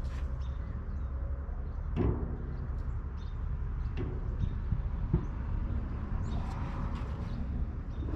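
A few light metal knocks and clicks, several seconds apart, from steel stove-kit parts being handled and fitted on a steel drum, over a steady low rumble.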